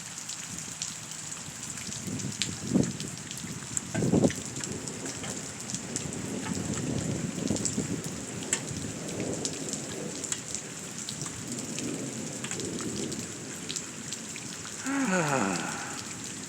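Steady rain falling, with drops pattering close by. Low rolls of thunder rumble through the middle, and there are two sharper knocks a few seconds in.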